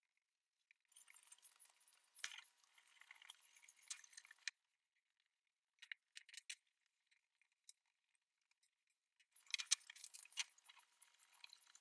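Faint rustling and light metallic clinks from handling a cast iron bench end and wiping it with a rag, in two short stretches with a few sharp clicks between them.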